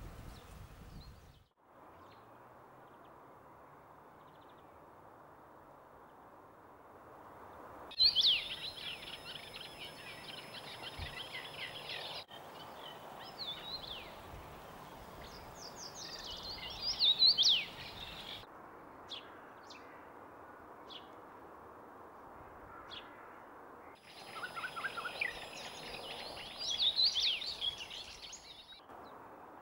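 Young common rosefinch singing: spells of quick, high whistled notes that rise and fall, starting about eight seconds in and returning near the end. Before the first spell there is only a steady hiss of outdoor background noise.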